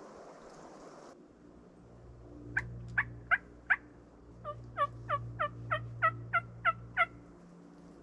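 Turkey yelps: four sharp yelps, a short pause, then a run of about nine more, each note dropping in pitch.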